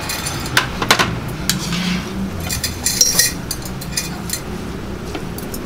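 Bowls clinking and knocking as cooked noodles are portioned into them by hand from a plastic colander: scattered sharp clinks, busiest around the middle, over a steady low hum.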